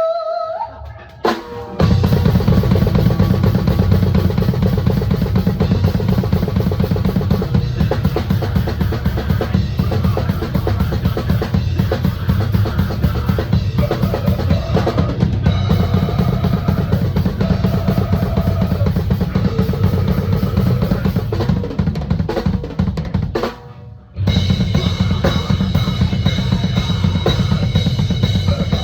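Drum kit played hard and fast, with rapid bass drum strokes and snare, over the band's other instruments; it kicks in about two seconds in, stops dead for about half a second a little before the end, then comes back in.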